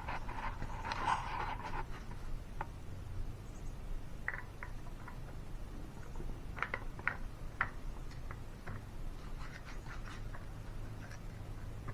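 Scattered light clicks and taps of hydraulic lifters and their lifter trays being set into the LS engine block by hand, a cluster in the first two seconds and then single clicks and small groups, over a low steady hum.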